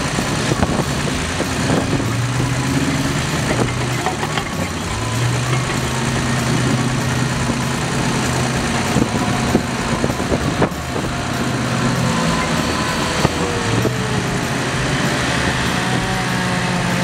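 Large mining haul trucks' diesel engines running steadily, with a whining pitch that shifts near the end.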